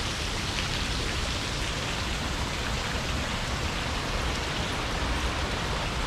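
Steady rush of river water over rapids and falls, an even, unbroken hiss.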